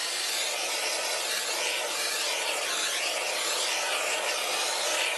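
Handheld torch flame hissing steadily as it is passed over freshly poured epoxy resin to pop the surface bubbles.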